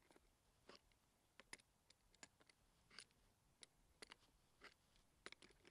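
Faint, irregular metal clicks from a wrench tightening a pressure gauge's Teflon-taped thread into its fitting, about one or two clicks a second.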